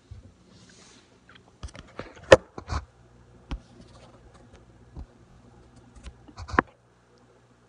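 Scattered, irregular clicks and knocks, the loudest about two seconds in and a small cluster near the end, over a faint steady low hum; both stop suddenly near the end.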